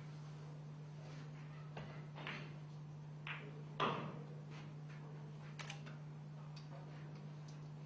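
Pool balls knocking against each other and the table's cushions as they roll after a shot: a handful of sharp clicks and knocks, the loudest just under four seconds in, over a steady low hum.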